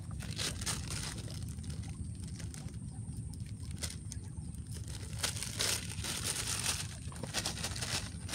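Thin plastic bag of kerupuk crackers crinkling and rustling in irregular bursts as it is handled and opened, busiest a little past the middle, over a steady low background rumble.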